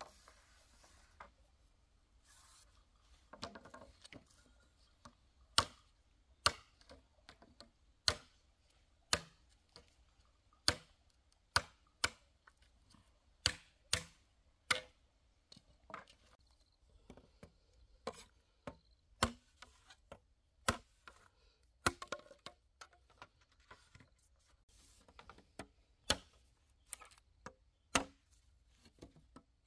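Chopping: a blade striking wood in a series of about twenty sharp blows, roughly one a second, with a couple of short pauses.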